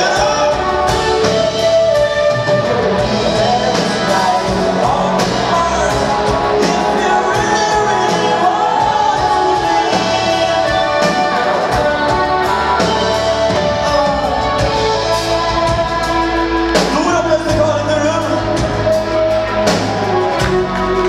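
A rock band playing live: singing over electric guitars, keyboard and a drum kit with a steady beat, loud and continuous.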